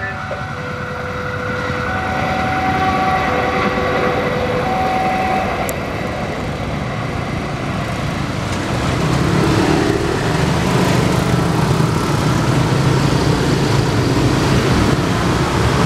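Traffic at a railway level crossing: a passenger train running away into the distance, with motorcycle engines idling close by, louder in the second half.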